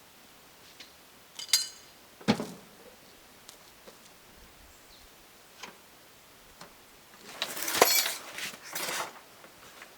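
A few separate clinks and knocks of hard objects, one with a short metallic ring, then a louder rattling clatter near the end.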